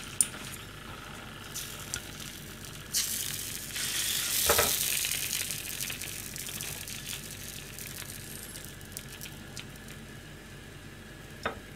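Sizzling from a hot pan: a steady hiss that swells about three seconds in, peaks, then slowly dies down. There is a sharp click just after the start.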